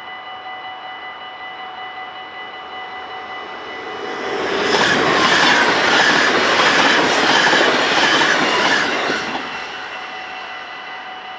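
A Dutch double-deck electric passenger train passes over the level crossing at speed. Its rushing wheel-and-rail noise builds about four seconds in, with wheel clicks over the rail joints, and fades away after about five seconds. The crossing's warning bells ring steadily throughout.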